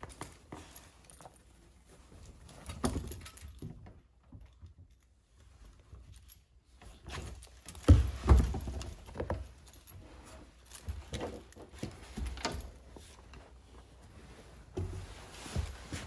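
Labrador puppy moving about: irregular thumps and scuffles of its paws on a cushioned dog bed and wooden floor, with metal tags on its collar jingling. The loudest thumps come about eight seconds in, as it steps down onto the floor.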